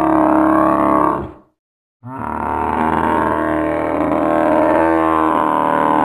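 Custom dinosaur roar sound effect made from layered animal recordings. One deep, pitched roar fades out about a second and a half in; after a short gap a second, longer roar starts and is still going at the end.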